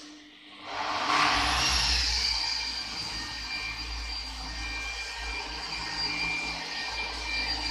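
Electric car polisher with a foam pad buffing paint: the motor spins up about a second in, then runs steadily with a high whine over a low rumble as the pad works the bonnet.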